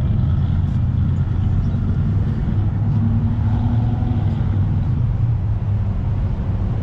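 Steady low rumble of car engines running close by, with traffic going past.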